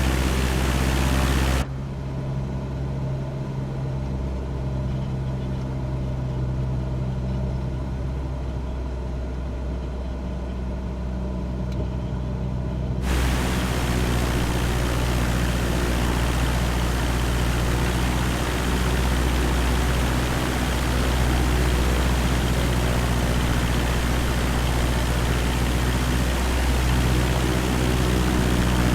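Cessna 172's piston engine and propeller droning steadily in cruise, a deep even hum with hiss over it. From about two seconds in until about thirteen seconds the sound turns muffled, with the hiss gone, then returns to full.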